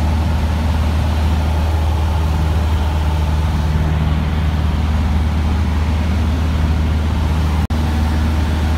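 Cessna 150's Continental O-200 four-cylinder engine and propeller droning steadily in flight, heard from inside the cabin with a constant rush of air. The sound cuts out for an instant near the end.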